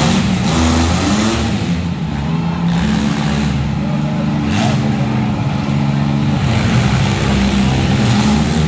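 Engines of several compact demolition derby cars revving and running hard, their pitch rising and falling, with a few short bangs among them.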